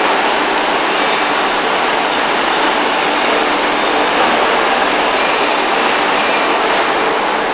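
Steady rushing noise of a factory floor, even and unbroken, with no separate weld clicks or bangs standing out.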